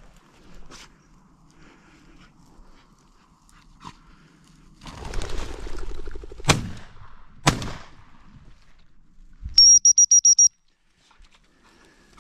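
A game bird flushing with about a second of whirring noise, then two shots from a double-barrelled shotgun about a second apart. A couple of seconds later comes a rapid string of short, high pips on a dog whistle.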